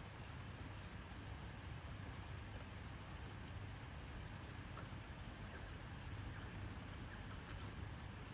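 A small bird singing a rapid run of short, high, thin chirps, from about a second in until about six seconds, over steady low outdoor background noise.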